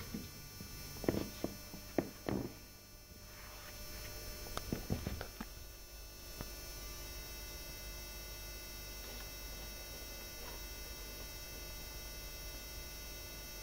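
Steady electrical hum, with a few short knocks and rustles in the first five seconds.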